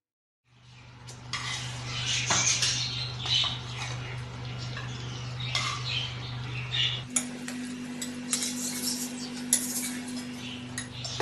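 Metal tongs clinking and scraping against a non-stick frying pan as fried fish pieces are lifted out of the oil, in many scattered irregular clicks, over a steady low hum.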